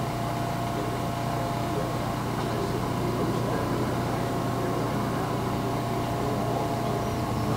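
Engines of several outboard racing hydroplanes running at speed across the water, heard from afar as a steady, even whine.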